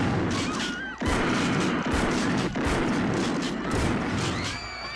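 Gunfire in a movie shootout: several loud, sharp shots about a second apart over a dense, noisy din.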